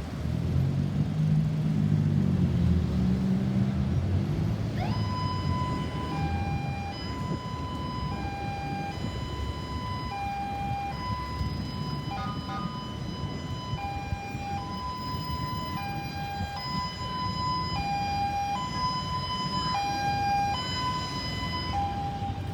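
Ambulance siren sounding a two-tone hi-lo pattern, steadily switching between a higher and a lower note. It comes in about five seconds in, after a stretch of low rumble.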